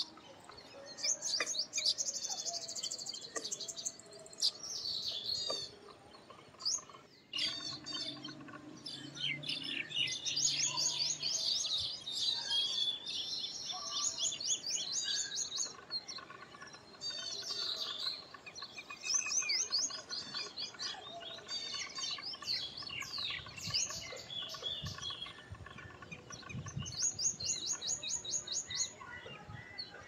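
Baya weavers chattering at their nest colony: many high, fast chirps coming in bursts of a few seconds, with short lulls between them.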